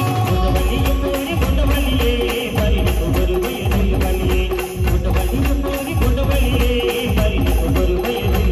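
Loud amplified band music from a truck-mounted band's loudspeakers: a keyboard melody over a heavy, pulsing bass-drum beat with a steady cymbal rhythm.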